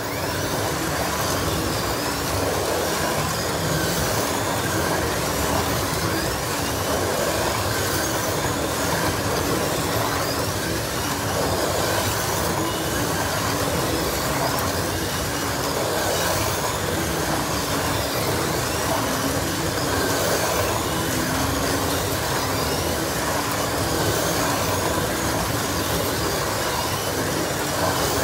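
Several 1/32-scale electric slot cars racing together around a plastic track: a loud, steady din of small motors and cars running along the track, starting suddenly as the race resumes, with motor pitch sliding up and down as cars speed up and brake.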